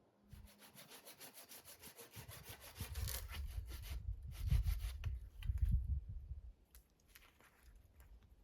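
Hand saw cutting wood with fast, even rasping strokes, with heavier low thumps about three to six seconds in.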